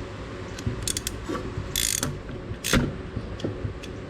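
Hand ratchet wrench clicking as a fastener is worked loose during front-end disassembly, with a sharp knock a little under three seconds in.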